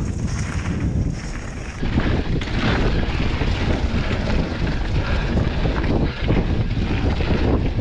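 Wind buffeting an action camera's microphone during a fast mountain-bike descent, mixed with knobby tyres rolling over a dirt trail covered in fallen leaves. The noise is steady and rumbling, and changes character about two seconds in.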